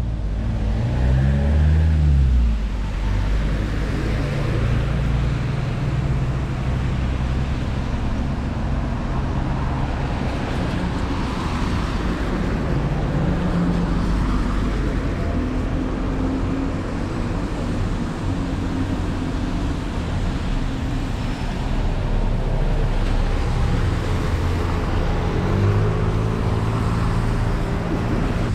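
Road traffic of double-decker buses and cars on a wet road: steady low engine running with tyre hiss. A vehicle speeds up with a rising engine note about a second in, and another near the end.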